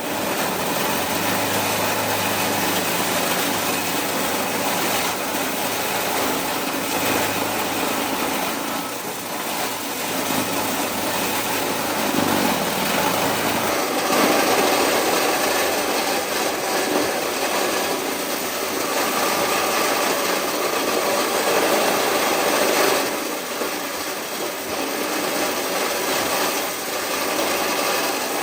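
A motorized corn-shelling machine running steadily, with a continuous rasping noise. A low hum drops out about halfway through while the noise carries on.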